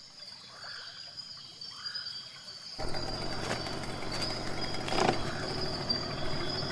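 A steady, high-pitched chorus of insects with a few short rising chirps. About three seconds in, the steady running noise of a boat's motor cuts in abruptly and drowns most of it.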